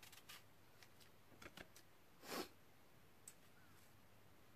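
Near silence with a few faint clicks and one short soft rustle a little over two seconds in: small handling noises of food and a spoon at the table.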